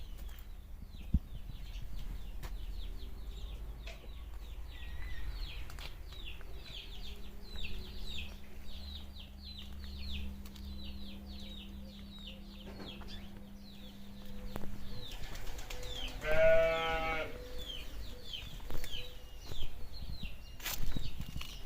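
One loud bleat, about a second long, comes about two-thirds of the way through. Underneath, short high chirps repeat steadily, several a second, over a low rumble.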